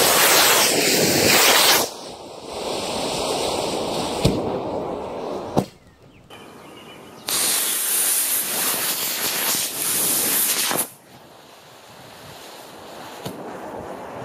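Two E9 model rocket motors firing on a hand plane: a loud rushing hiss that cuts off about two seconds in, a quieter hiss with two sharp pops, then a second motor hissing loudly for about three and a half seconds. The motors light one after the other rather than together, a failed simultaneous ignition.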